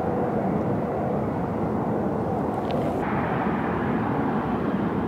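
Steady outdoor city ambience, a low rumble of distant traffic. About three seconds in, the upper hiss drops away and the rumble carries on.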